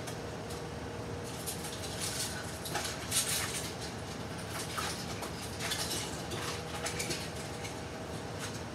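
Someone rummaging through things out of view: scattered bouts of rustling and light clattering over a steady room hum.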